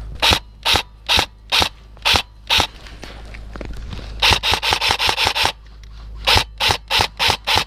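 Airsoft rifle firing single shots in quick succession: six sharp cracks about two a second, then a faster string around the middle, then another run of about seven near the end.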